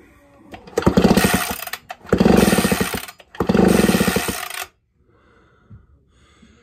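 Recoil starter of a Homelite 360 two-stroke chainsaw pulled three times, each pull spinning the engine over in a fast even whir for about a second. The spark plug is out, so the engine turns over freely without firing, as in a spark check.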